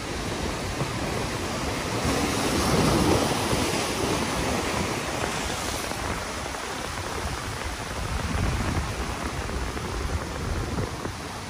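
Ocean surf breaking and washing over a rocky shore ledge: a continuous rushing of white water that surges to its loudest about three seconds in, then settles.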